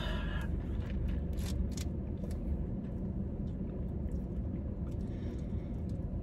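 Steady low background rumble with a few faint clicks and taps.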